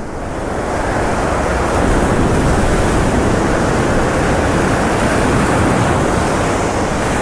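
Ocean surf breaking and whitewater washing up the beach: a steady rushing noise that swells over the first second and then holds.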